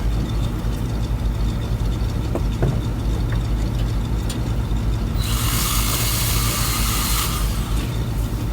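A machine's engine running steadily, with a loud hiss starting about five seconds in and lasting about two seconds.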